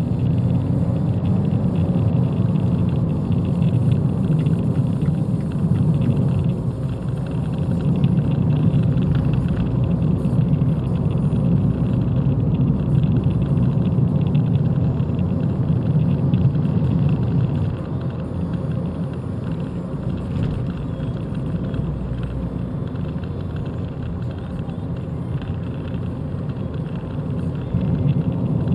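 Abarth 595 driving at steady speed, heard from inside the cabin: a continuous low engine and road rumble that eases a little about two-thirds of the way through, then rises again near the end.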